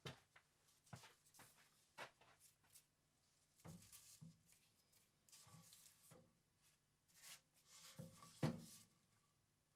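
Faint, scattered knocks and soft rubbing sounds, the loudest knock a little before the end.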